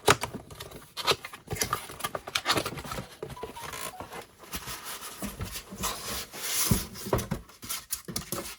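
A cardboard box and its packing being handled and opened: irregular rustling, scraping and small knocks.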